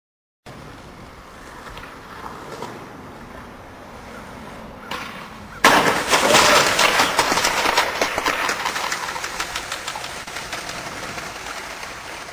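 Skateboard rolling on pavement, then a sudden loud crash a little past halfway, followed by a long clattering noise that slowly fades as the skater slams into a street pole and falls.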